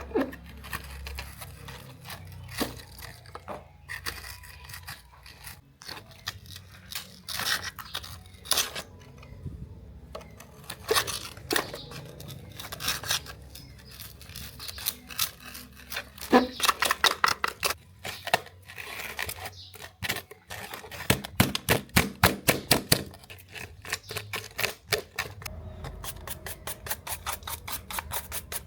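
Close-up work on a small scale-model toy car: scrapes, taps and clicks of small tools and parts handled by hand, with runs of rapid, evenly spaced clicks near the end.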